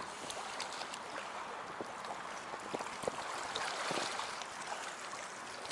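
Small waves lapping against the lakeshore: a steady wash of water with scattered small splashes and clicks.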